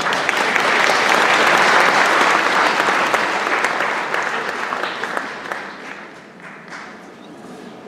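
Theatre audience applauding, loudest in the first few seconds and fading away by about six seconds in.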